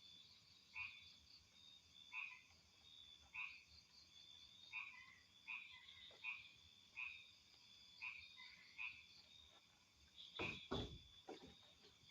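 Frogs calling at night: short croaking calls repeated about once a second over a steady high insect drone. A couple of dull thumps near the end.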